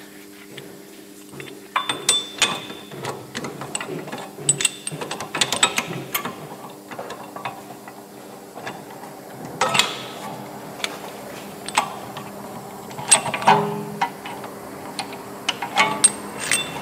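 Irregular metallic clicks, clinks and taps of hand tools: a brake caliper piston wind-back tool being fitted and handled on a rear disc brake caliper. A steady low hum runs underneath.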